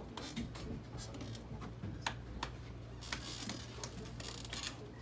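Dry-erase markers tapping and scratching on a whiteboard: a string of sharp clicks with a couple of short scratchy strokes.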